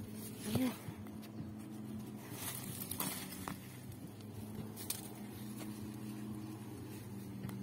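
Light rustling and scattered clicks of someone walking through grass and brushing past garden plants, over a steady low hum.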